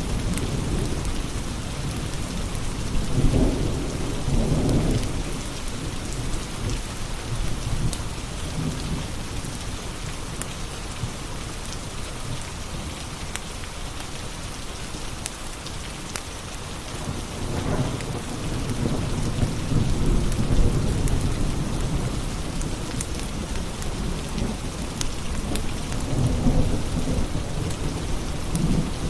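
Steady rain with low rolls of thunder swelling about three seconds in, again midway and near the end, with scattered small crackles of a wood fire over it.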